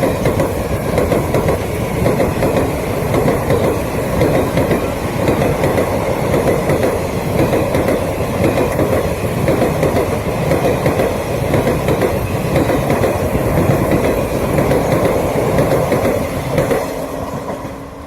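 Train running past at speed, its wheels clattering over the rail joints in a loud, steady rumble that begins to fade near the end.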